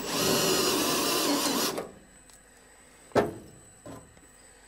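Cordless drill running a spot weld cutter into the sheet-steel floor pan under load, its whine wavering, for nearly two seconds before it stops. A little after three seconds comes a sharp metallic clank as the drill is set down on the floor pan, followed by a lighter knock.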